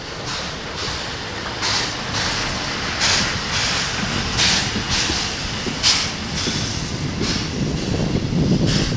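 Steam locomotive C11 207 chuffing slowly as it passes at low speed, a hissing exhaust beat about every second and a half. The low rumble of wheels on rail grows louder near the end as the trailing cars roll by.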